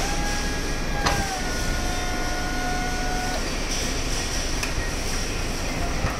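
A 1.5-ton walkie electric pallet truck moves under load, its electric drive whining steadily over a constant rumble. About a second in there is a click and the whine dips slightly in pitch. It cuts off abruptly about three and a half seconds in.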